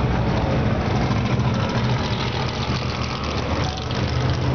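Engines of a field of historic racing cars idling together on the starting grid, a steady, deep blend of many engines with cars creeping forward at low revs.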